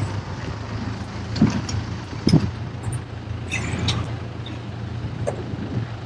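Tractor engine running steadily with a low drone.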